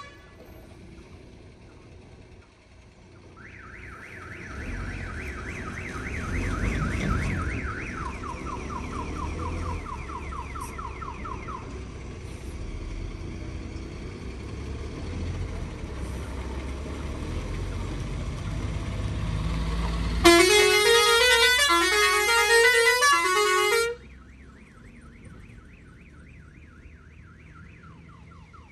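Heavy truck running on the highway with a low rumble, with a rapid electronic chirping that repeats for several seconds and steps down in pitch partway through. Near the end a loud multi-tone musical horn sounds for about four seconds in a run of rising notes.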